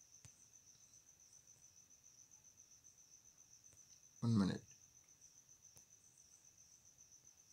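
Faint, steady, high-pitched insect trill, typical of a cricket, under an otherwise near-silent background. A short spoken sound breaks in about four seconds in.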